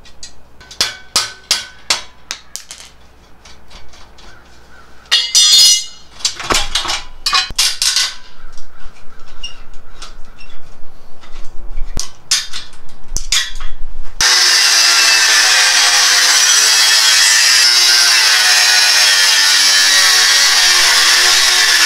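Scattered clinks, taps and clicks of hand tools working the rear shock's mounting bolt. About fourteen seconds in, a cordless angle grinder starts cutting through the bike's metal frame: a loud, steady grinding sound.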